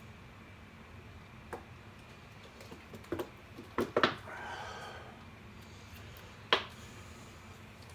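Sharp clicks and knocks from handling a 2-liter plastic soda bottle, scattered through the stretch, with a short hiss lasting about a second right after the loudest crack, about four seconds in.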